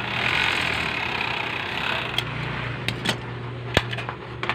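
Pegasus industrial overlock sewing machine stitching a fabric edge, its motor humming steadily; the stitching stops about two seconds in while the hum goes on, followed by a few sharp clicks.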